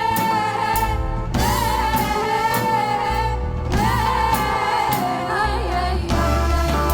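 An Arabic song: a solo voice sings long, wavering held notes in phrases over a steady bass and instrumental backing.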